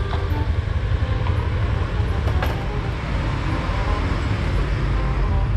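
Steady low vehicle rumble, with a faint click a little over two seconds in.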